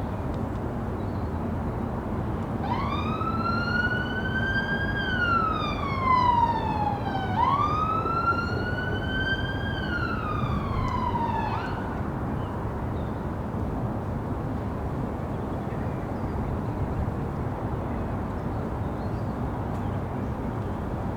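Emergency vehicle siren in the city, two slow rising-and-falling wails, that cuts off about twelve seconds in, over a steady rumble of city traffic.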